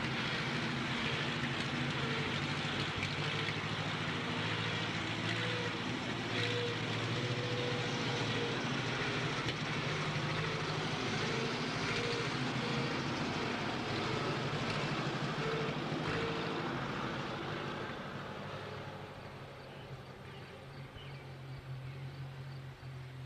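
1925 Indiana truck's engine running as the truck drives past, a steady low hum that fades away over the last few seconds as it moves off.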